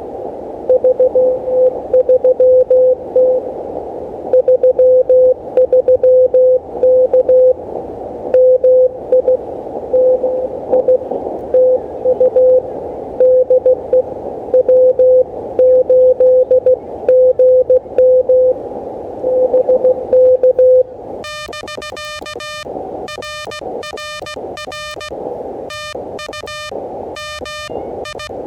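Morse code on an Elecraft KH1 handheld CW transceiver: a keyed tone of about 500 Hz over the receiver's band-limited hiss while a station is being copied. About 21 s in, the hiss cuts out and a buzzier keyed tone takes over, which is the rig's sidetone as the operator sends.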